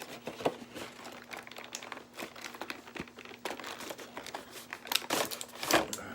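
Marvel Legends action figure packaging being handled and opened: irregular crinkling and crackling of the plastic and cardboard, with a few sharper snaps.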